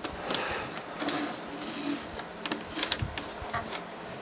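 Light mechanical clicking and ticking from a Denon DVD-M330 DVD player's disc-loading mechanism, with a faint motor hum, as the transport tray lift tries to rise and fails: the owner blames the lift mechanism, not the firmware.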